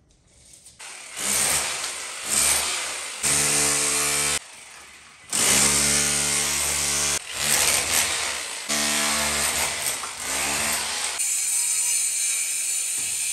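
A power tool running in several bursts of a few seconds each, stopping and starting again; in the last couple of seconds it gives way to a steadier hiss.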